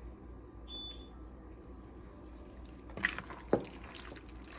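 A single short, high electronic beep about a second in, then two light knocks near the end, over a steady low hum of kitchen background.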